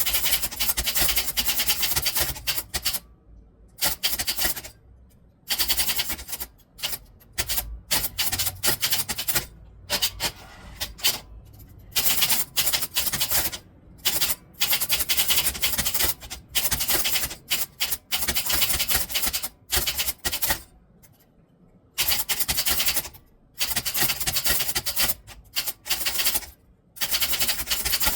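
Typewriter keys struck in fast runs of clacks, broken by short pauses of about a second.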